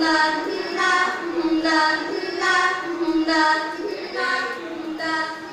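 Young girls' voices singing a chant-like song, short phrases held on steady notes and repeating about once a second.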